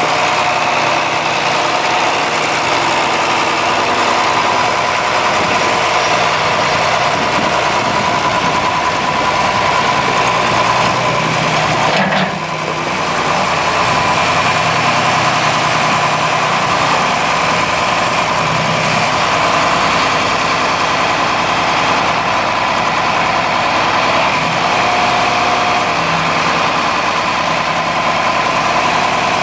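John Deere 4020's six-cylinder diesel engine running steadily at idle, with a brief dip in level about twelve seconds in.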